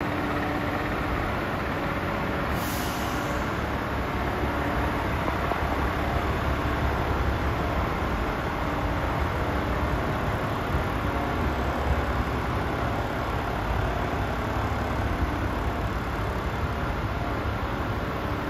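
DAF CF tractor unit's Paccar 440 bhp Euro 6 six-cylinder diesel idling steadily with a deep low hum, with a short hiss of air from the truck about three seconds in.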